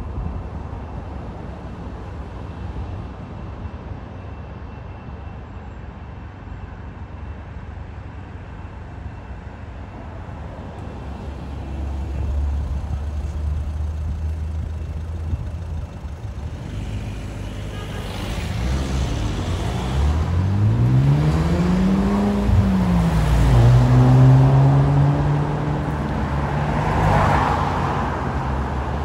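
Road traffic: a steady low rumble, then a motor vehicle's engine climbing in pitch as it accelerates, starting about two-thirds of the way through. It eases off again, and a steadier engine note holds after it. The traffic is loudest in that stretch.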